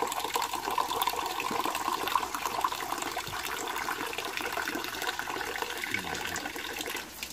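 Tap water running and splashing steadily, as when betel leaves are rinsed under it.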